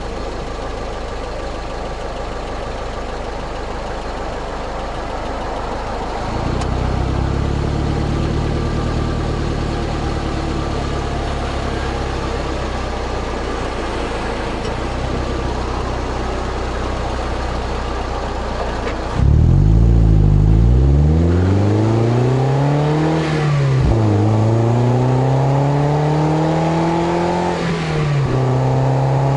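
Exhaust of a 2003 Toyota MR2 Spyder's 1.8-litre 1ZZ-FED four-cylinder through a titanium cat-back system. It runs steadily low, then holds a higher steady engine speed, then about two-thirds of the way through it gets suddenly louder and climbs through the revs, dropping twice at what sound like upshifts. Heard close at the tailpipe, with engine noise mixed in.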